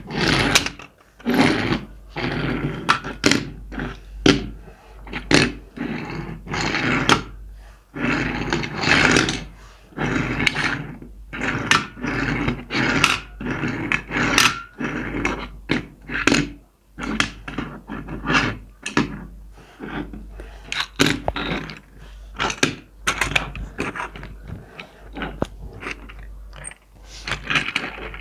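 Close-miked handling of toy car packaging: a rapid, irregular run of rustles, crinkles and sharp taps over a low steady hum.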